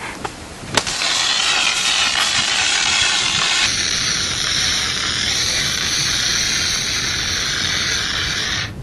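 Burning pyrotechnics hissing loudly and steadily after a sharp crack about a second in. The hiss changes tone a little before the middle and cuts off abruptly near the end.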